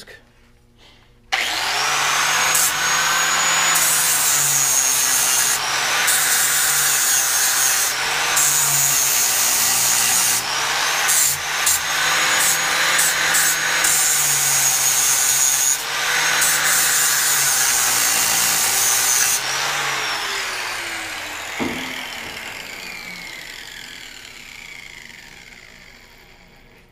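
Angle grinder with a flap disc spinning up about a second in and grinding down a fresh weld; the motor note sags and recovers again and again as the disc is pressed on and eased off. It is switched off a little past two-thirds of the way through and winds down slowly, with a single knock as it coasts.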